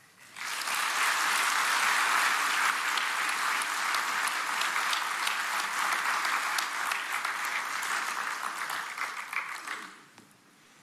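Audience applauding. It starts just after a speech ends, holds steady, and dies away about ten seconds in.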